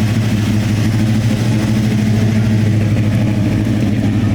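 Car engine idling steadily with a low, even hum; the pitch holds without any revving.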